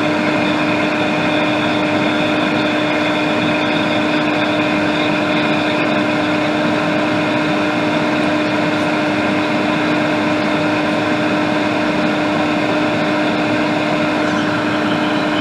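Steady mechanical hum with a constant mid-pitched tone over an even rushing noise, unchanging throughout.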